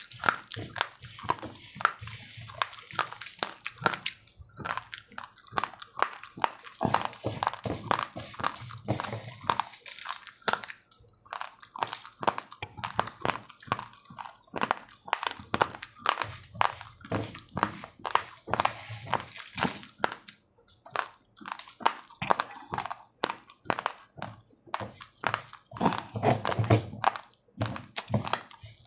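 Dry raw rice grains being chewed, a fast, dense run of hard crunches.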